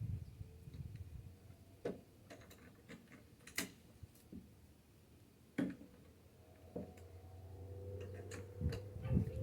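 Scattered sharp clicks and knocks of hand tools and mounting hardware being handled, a few single strikes a second or two apart. A faint steady hum comes up near the end.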